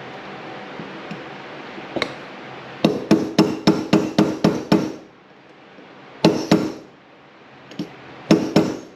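Hammer striking a brass punch to drive a new roll pin into an RB26 individual throttle body assembly: a single knock, then a quick run of about eight sharp ringing metal strikes, then a few more strikes near the end as the pin seats.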